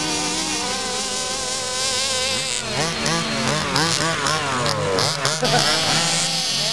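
Small two-stroke petrol engines of 1/5-scale RC cars buzzing, with several revving up and down over one another through the middle few seconds before settling back to a steady drone.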